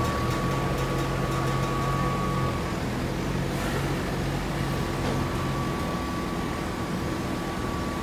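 A forklift engine running steadily as it drives with a load, over a steady machine hum. A thin high whine runs through it and drops out for about two seconds midway.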